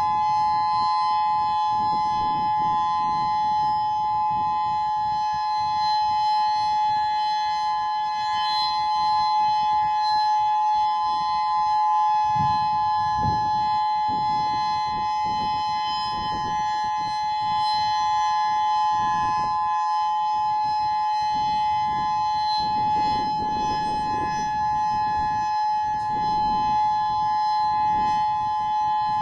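Federal Signal Modulator 8032B electronic outdoor warning siren sounding its steady Alert signal: a loud, continuous tone on two close pitches, held level without rising or falling.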